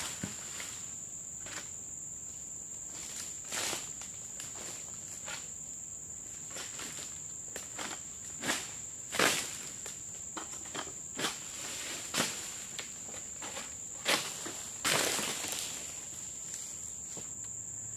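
Steady high-pitched drone of insects, broken by scattered rustles and crunches as oil palm fronds are pruned with a long-pole sickle (egrek) and trodden underfoot on the cut fronds. The longest crunch comes about fifteen seconds in.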